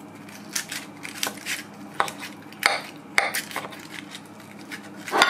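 A knife cutting into a foil-wrapped baked tomato and cheese in a ceramic dish: about eight short scrapes and clicks of metal on foil and dish at irregular intervals, the loudest near the end.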